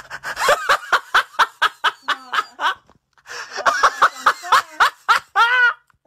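A person laughing in quick, repeated bursts, about five a second, in two bouts with a short break around three seconds in.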